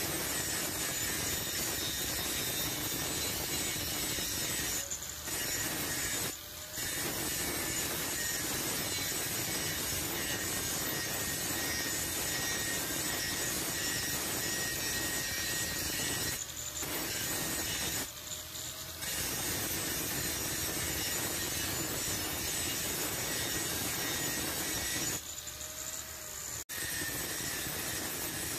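Angle grinder with an abrasive disc cutting into a hardened steel file: a steady harsh grinding noise that dips briefly about five times.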